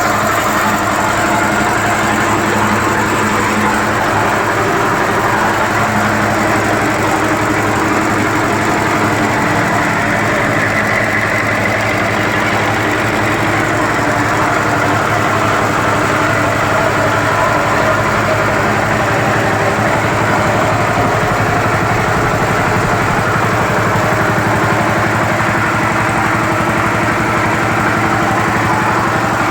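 Yanmar TF85 single-cylinder diesel engine running steadily, driving a Meiji two-cylinder air compressor pump.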